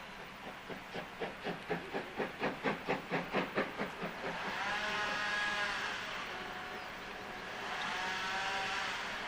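Steam locomotive pulling away with its train, the exhaust beats quickening from about four to about five a second and growing louder. Then its steam whistle sounds twice, a long blast of several tones that rises and falls in pitch and a shorter one, over a steady hiss of steam.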